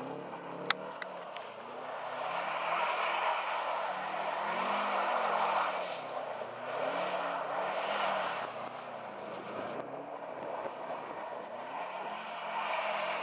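Tuned Subaru Forester's flat-four engine revving up and down over and over as the car drifts on snow, with the noisy hiss of spinning tyres on snow swelling and fading with it. There is a sharp click about a second in.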